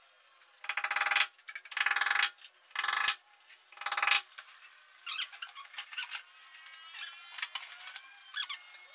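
Four rasping strokes of a hand tool, each about half a second long and roughly a second apart, like sawing or filing. After that, birds chirp in the background.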